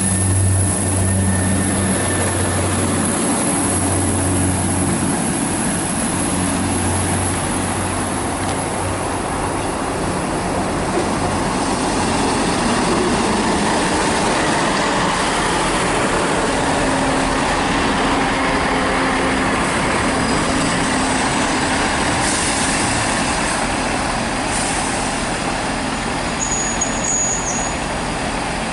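Diesel multiple unit train running at the station: a low engine drone that drops away about six seconds in, then a steady rushing noise.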